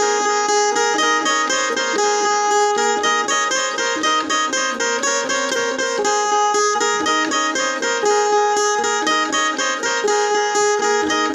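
Indian banjo (bulbul tarang), a keyed zither whose strings are stopped by typewriter-style keys and struck with a plectrum, playing a jas geet melody in quickly repeated picked notes.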